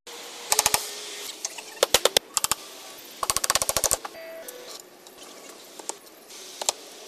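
Quick runs of sharp knocks from construction work on a deck frame; the fastest run is about ten strikes in under a second, and fainter single knocks follow.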